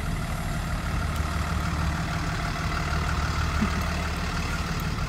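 School bus engines idling at the curb, a steady low engine hum.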